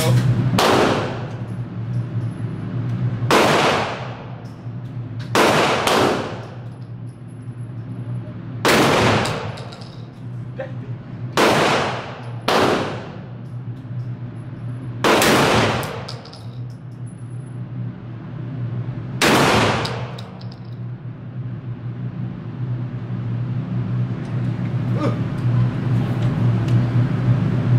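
A 12-gauge shotgun fired about ten times, mostly single shots two to three seconds apart with a few quick pairs, each blast trailing off in a short echoing ring off the indoor range walls. The shooting stops about twenty seconds in. A steady low hum runs underneath.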